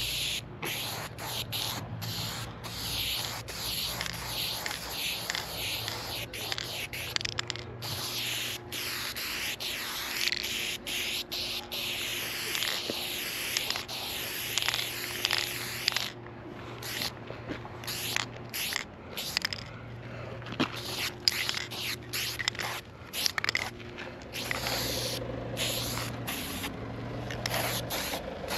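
Aerosol spray paint can fitted with a wide graffiti cap, hissing as paint is sprayed onto a wall. The hiss comes in runs of a second or two, cutting off and starting again many times as each stroke is laid down.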